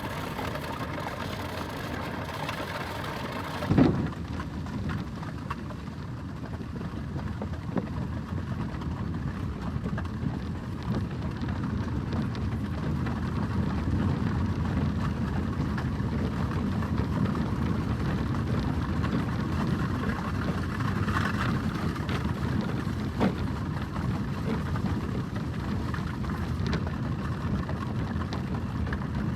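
Horse-drawn carriage rolling: a steady low rumble of wheels with scattered small knocks and clicks. About four seconds in, a sharp loud knock marks a change to a deeper, steadier rumble.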